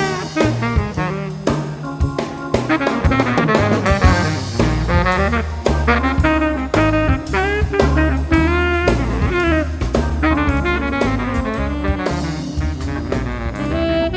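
Jazzy electronic music: a lead melody in sliding, bending notes over a drum beat and a low bass line that steps between notes.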